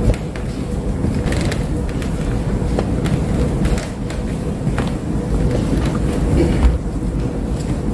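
Background noise of a crowded hall: a steady low rumble with a faint hum and scattered light clicks and knocks.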